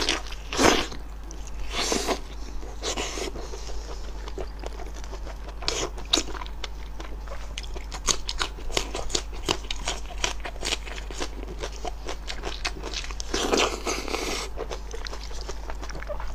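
Close-up eating sounds: wet biting, tearing and chewing of spicy braised sheep meat and offal, with many small crisp clicks. A few louder, longer noisy bursts stand out, the longest near the end.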